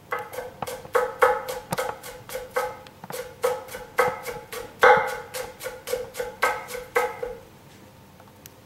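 Chef's knife chopping a jalapeño on a wooden cutting board: a steady run of knocks, about three a second, each ringing briefly. The chopping stops about seven seconds in.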